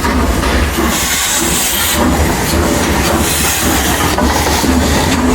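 Train running along the track: a steady noisy rush over a deep rumble.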